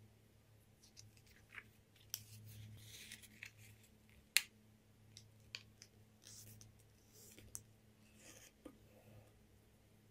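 A sheet of origami paper being folded in half and creased flat by hand: faint crinkling, rustling and rubbing of the paper, with one sharp tick about four seconds in, over a low steady hum.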